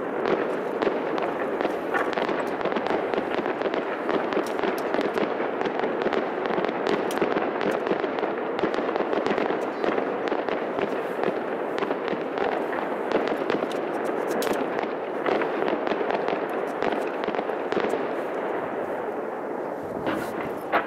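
A fireworks display: a dense, continuous crackle of many small pops, with a sharper bang near the end.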